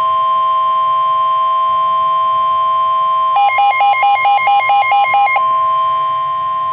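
Weather radio warning alarm: a long, loud, steady tone just above 1 kHz, the NOAA Weather Radio 1050 Hz tone that comes before a broadcast warning message. About halfway through, a fast pulsing beep sounds over it for about two seconds.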